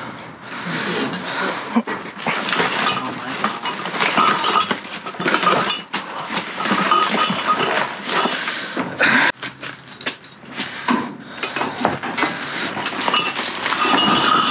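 Rummaging through trash in a dumpster: a steady run of rustling and clatter, with glass wine bottles clinking and knocking against each other.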